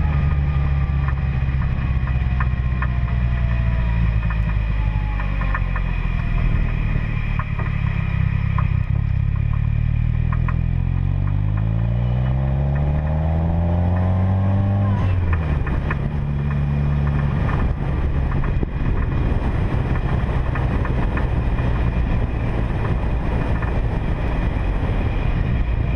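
Car engine running while driving. Around the middle it revs up, its pitch climbing for a few seconds, then drops suddenly as it shifts gear, and it runs on steadily.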